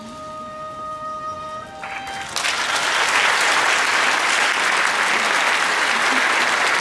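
A couple of held musical notes, stepping up once in pitch, then an audience bursting into loud, steady applause about two and a half seconds in.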